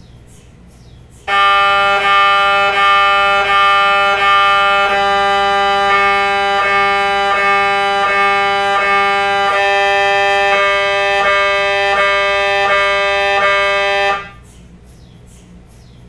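MRI scanner buzzing a loud, steady high-pitched tone, chopped into regular pulses about every three quarters of a second, as its gradient coils run an imaging sequence. It starts about a second in and cuts off suddenly near the end.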